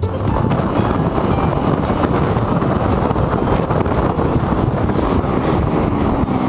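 Steady wind rush over the microphone of an onboard camera on a Honda Elite 125 scooter cruising at highway speed, with the single-cylinder engine and road noise underneath. Near the end a faint tone falls in pitch.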